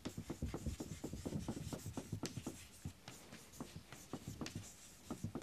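Chalk writing on a chalkboard: a quick, irregular run of faint taps and short scratches as words are written.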